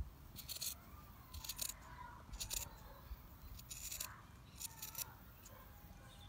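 Scissors cutting through two layers of fabric pinned to a template, five short snips about a second apart.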